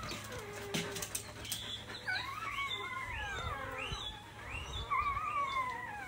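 Dog whimpering: a string of high, falling whines, several overlapping, starting about two seconds in.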